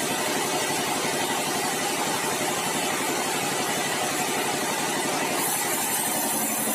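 Sawmill engine running steadily at an even pace, with a rapid regular pulsing; the sound changes slightly about five seconds in.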